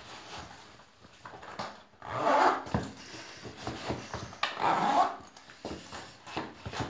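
Fur-lined winter boots being pulled on by hand: rustling and rubbing of the boot shafts and clothing, with knocks of feet on a wooden floor. Two louder swishes, about two and four and a half seconds in, are the loudest sounds.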